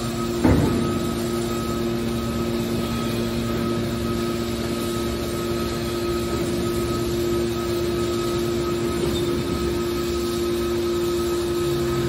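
Hydraulic scrap-metal baler's power unit running with a steady hum while its cylinders swing the press lid open. A single clank comes about half a second in.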